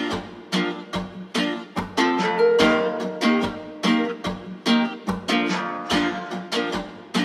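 Outro music: a strummed acoustic string instrument playing chords in a steady rhythm, about two strums a second.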